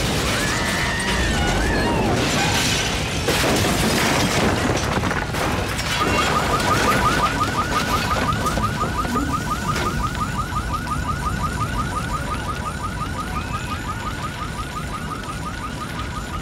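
A car alarm sounding a rapid electronic pulse, about six or seven beeps a second, that starts about six seconds in. Before it comes a loud rumbling, clattering noise with a few knocks, from the wreckage.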